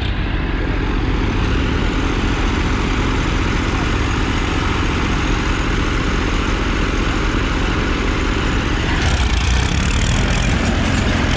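Several diesel farm tractor engines running together while the tractors stand in a line, a steady mechanical din. About nine seconds in, a deeper, louder engine rumble comes in and holds.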